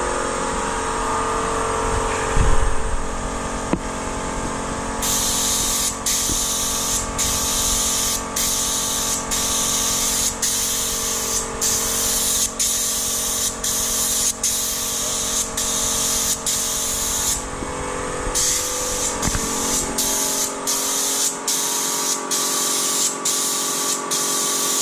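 Compressed-air spray gun hissing in short repeated bursts, about one a second, as the trigger is pulled and released while spraying flowcoat onto a fibreglass boat hull. A steady machine hum runs underneath.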